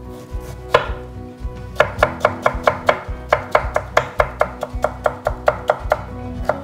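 Chef's knife cutting peeled pear into thin matchsticks on a wooden cutting board: one cut, then a quick run of even chopping strokes, about six a second, with a short break partway through.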